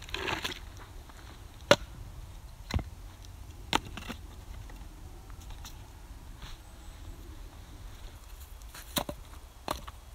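Short logs of split firewood being set down on a ring of stones and against each other: a handful of separate sharp wooden knocks, two close together near the end, with a brief rustle at the start.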